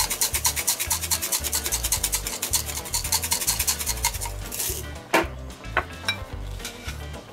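Hand-twisted spice grinder grinding coarse salt or pepper with a fast, even rasp of about ten strokes a second, stopping about four seconds in. A little later come two sharp clicks.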